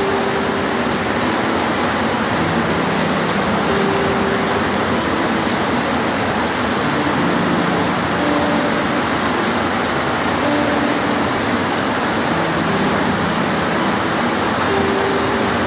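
Steady, even rain noise. A few faint, short, steady hums sound now and then beneath it.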